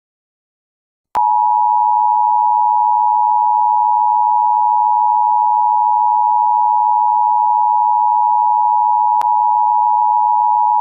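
Emergency Broadcast System attention signal: a loud, steady electronic tone of two close pitches sounding together. It starts with a click about a second in and holds unbroken, with a faint click near the end. This is the tone that announces an emergency broadcast alert.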